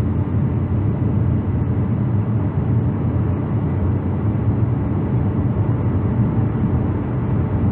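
Car engine idling, heard as a steady low rumble inside the cabin.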